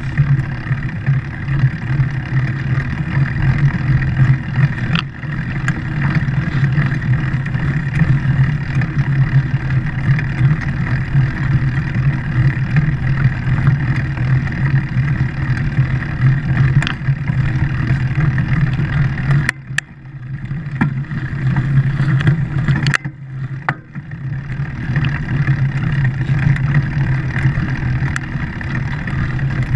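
Engine of a vehicle running steadily with a constant hum while riding over sand. The engine sound drops away briefly twice, about two-thirds of the way through, as if the throttle were let off.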